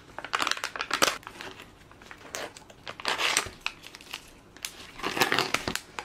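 Clear plastic film lid being peeled back off a plastic food tray, crinkling and crackling in three bouts.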